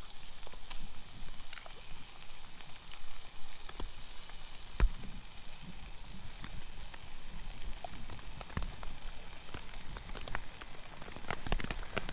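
Chicken and rice sizzling in a camp pan: a steady hiss with many scattered small ticks and pops.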